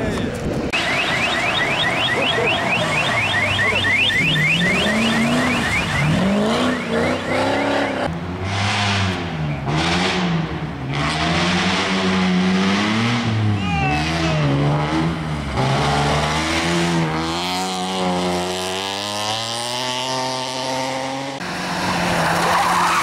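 Rally car engines revving hard as the cars race past one after another on a stage. Their pitch climbs and drops with each gear change and lift-off. There is a fast ticking run in the first few seconds and a few sharp cracks around the middle.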